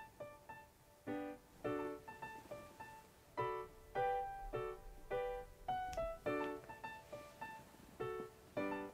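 Background piano music: chords and short melody notes struck in a steady, lilting rhythm.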